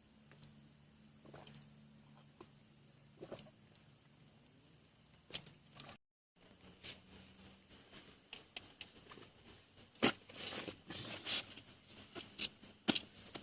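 Insects, likely crickets, trilling steadily in a high pitch, with scattered irregular taps and clicks that grow louder and more frequent in the second half. There is a brief cut to silence about six seconds in.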